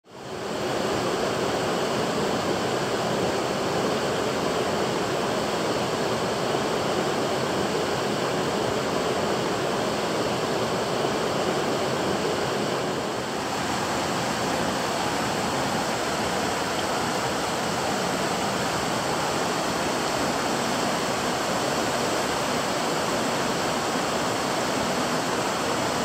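River rapids: whitewater rushing over and between boulders in a steady, unbroken roar.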